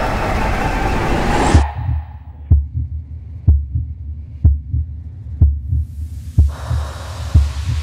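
Live concert music with crowd noise cuts off abruptly about one and a half seconds in. It gives way to a soundtrack effect of deep, heartbeat-like double thumps about once a second, with a rising wash of sound building under them near the end.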